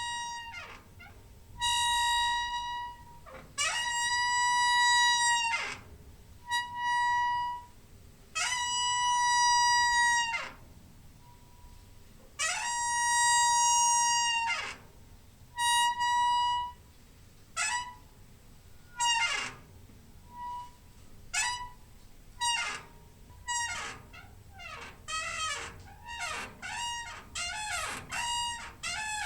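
Squeaking door hinge, a run of drawn-out high squeaks, each holding one steady pitch with a slide in and out of it. The squeaks are long in the first half and become shorter and quicker near the end.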